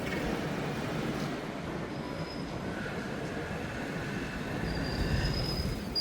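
Steady city street noise with thin, high-pitched squeals, a short one about two seconds in and a longer one near the end.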